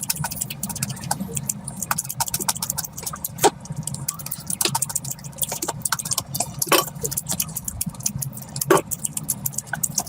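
Close-miked eating sounds: wet chewing with many quick irregular mouth clicks and lip smacks, a few louder smacks among them, over a low steady hum.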